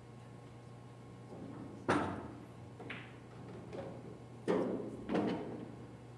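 Four sharp knocks: a loud one about two seconds in, a fainter one a second later, then two more close together near the end, each with a short ringing tail.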